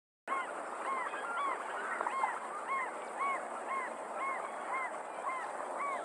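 African jacana calling: a steady series of short nasal notes, each rising and falling in pitch, repeated somewhat under two times a second over a steady outdoor hiss.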